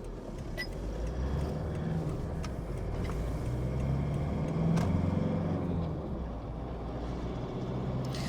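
Diesel pickup's engine pulling away, heard from inside the cab; the engine note builds over the first few seconds and eases off slightly after about five seconds.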